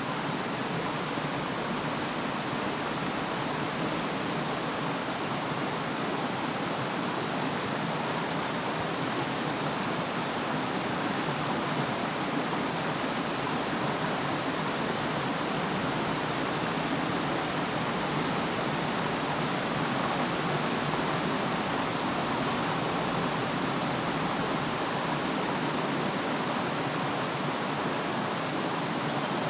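Steady, unbroken rushing of flowing water from a forest stream, an even wash of noise with no pauses or separate sounds.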